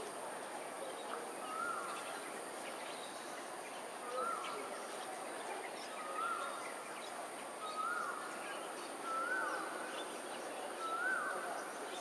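A bird repeating a short whistled call, a level note that bends up and back down, about every one and a half to two seconds and slightly quickening, over steady outdoor background noise.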